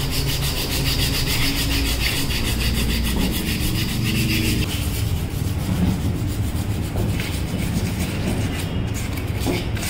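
Hand sanding on metal brake calipers and caliper brackets: a steady run of rapid rasping, scratching strokes. A steady low hum sits underneath.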